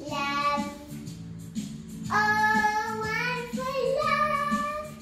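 A young girl singing a song over a backing track, holding long notes, with a steady low accompaniment and light beat beneath her voice.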